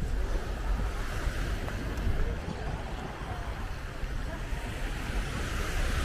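Sea waves washing on the beach, with wind buffeting the microphone as a steady low rumble.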